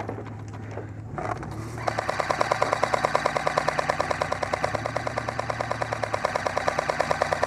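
An airsoft electric gun firing full-auto in one long, continuous burst, starting about two seconds in, a rapid, even rattle over the truck engine's steady low hum.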